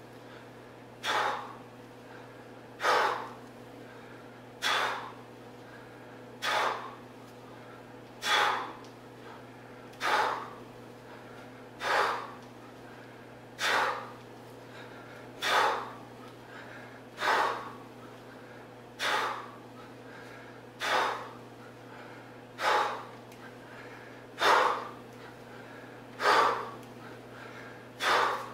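A man breathing hard in time with 40 kg kettlebell swings: a short, sharp huff of breath about every two seconds, sixteen in a row, one at each swing.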